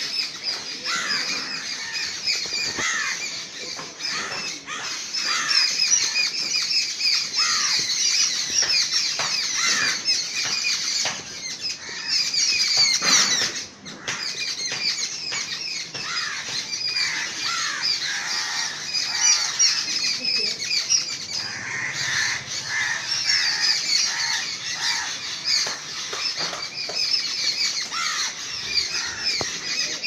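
A flock of crows calling harshly and without pause while mobbing a perched owl, with many rapid, high-pitched calls running through the whole time.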